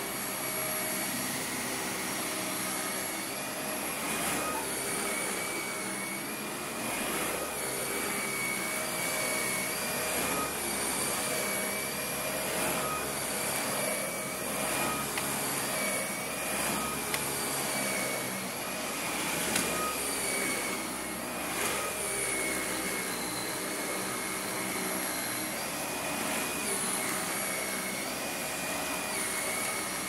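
Dyson upright vacuum cleaner running steadily while pushed back and forth over thick carpet. Its motor whine wavers slightly in pitch over an airy rush, and there are a few sharp ticks.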